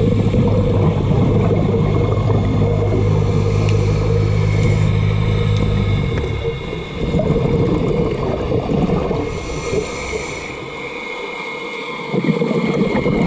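Underwater sound on a scuba dive: a steady low motor hum that cuts off suddenly about six seconds in, over gurgling water and bubble noise that swells again near the end.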